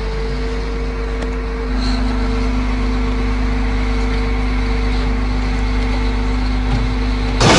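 A large engine running steadily, a held whine over a low rumble. In the last moment a sudden loud crash breaks in.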